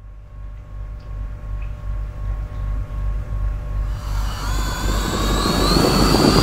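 A deep rumble grows steadily louder. From about four seconds in, the high whine of FPV quadcopter motors joins it, several pitches gliding up and down.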